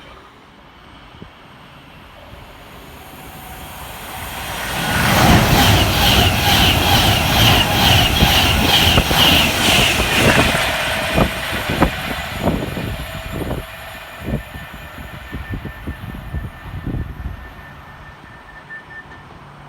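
A train passing through the station: its noise builds over a few seconds, rushes past loudly, then a string of sharp wheel clacks follows as it draws away and fades.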